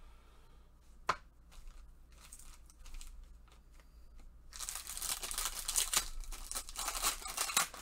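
A foil trading-card pack and its cards handled with nitrile-gloved hands: one sharp click about a second in, then a dense crackling rustle of wrapper and cards from a little past halfway.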